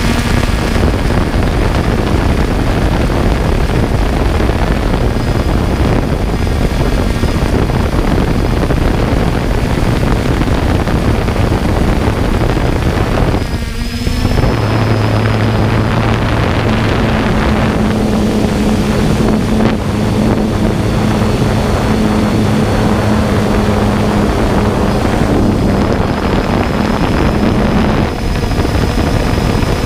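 3DR Solo quadcopter's electric motors and propellers running steadily, heard from on board with wind rushing over the microphone. About halfway through the hum dips briefly and settles at a lower pitch.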